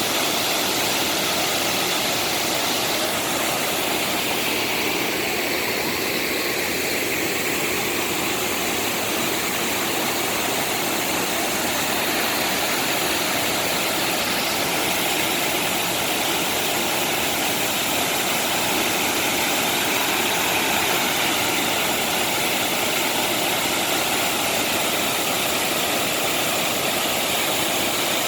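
Waterfall: water rushing steadily and evenly, with no breaks or changes.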